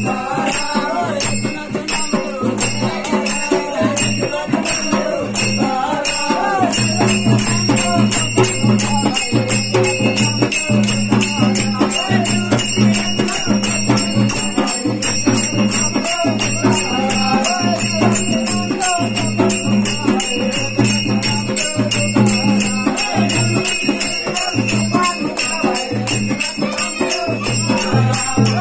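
Live village folk dance music: small brass hand cymbals and jingling bells clash in a fast, steady beat over a low drone, with voices singing in places.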